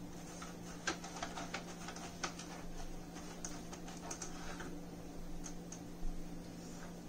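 Silicone pastry brush dabbing and sweeping ghee over a thin disposable aluminium foil tray: irregular light taps and crinkles of the foil, over a steady low hum.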